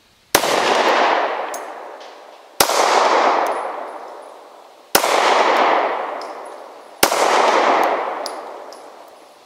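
Four shots from a SCCY CPX-2 9mm pistol, fired slowly about two seconds apart. Each shot is followed by a long echo that dies away over about two seconds.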